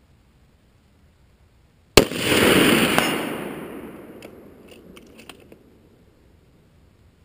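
A single shot from an FN SPR A3G bolt-action rifle in .308 Winchester about two seconds in: a sharp crack followed by a long rolling echo that dies away over about three seconds, then a few faint clicks.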